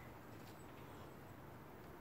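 Near silence: faint steady background noise with a low rumble and no distinct events.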